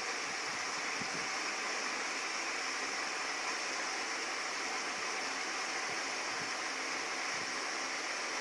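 Steady, even hiss of background noise with no other distinct sound, apart from a few faint low bumps.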